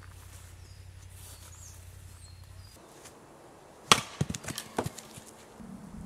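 An axe strikes a log once with a sharp, loud crack about four seconds in while firewood is being split, followed by a few lighter wooden knocks.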